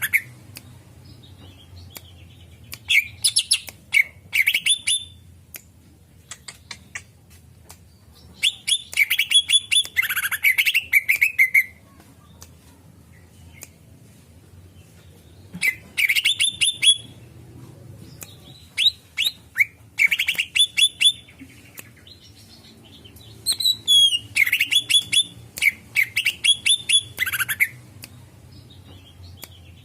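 Green leafbird (cucak ijo) calling in bursts of rapid, sharp chirps, a volley every few seconds with short pauses between.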